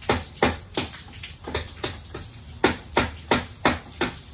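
Hand hammer driving nails into a wooden furring strip against fascia board: about a dozen quick, sharp blows, roughly three a second, tacking the strip in place.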